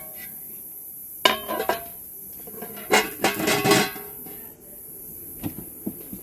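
Large metal tray being handled and set down on a table: a sharp ringing clank about a second in, a longer clattering rattle around three seconds in, and a few lighter knocks near the end.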